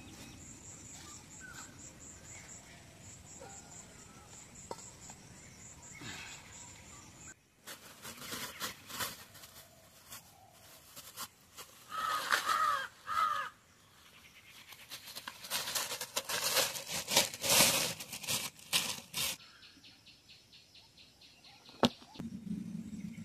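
Thin plastic bag crinkling and rustling as hands unwrap it, in dense crackly bursts. Before it, a steady high insect trill runs for the first few seconds.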